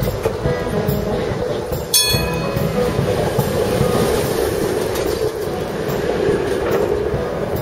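PCC streetcar rolling past close by, a steady rumble of its running gear and steel wheels on the rails, with one sharp metallic clang that rings briefly about two seconds in.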